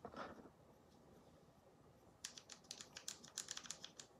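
Fingertip and nail tapping and rubbing in a plastic eyeshadow compact to pick up silver shadow: a quick run of faint, light clicks starting about two seconds in and lasting about two seconds.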